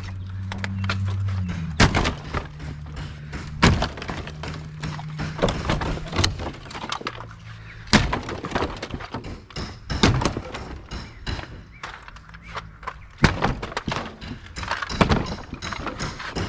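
Repeated heavy blows smashing through an interior house wall, each one with a crack and crunch of breaking wallboard and wood, coming at an uneven pace. A low steady hum runs under the first half.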